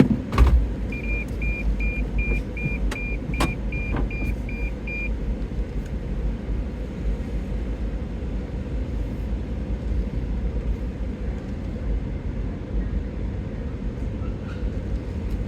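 A car's low rumble, heard from inside the cabin as it drives slowly into a parking garage. About half a second in there is a sharp knock, and from about one to five seconds in there is a run of about a dozen short, even electronic beeps, roughly three a second.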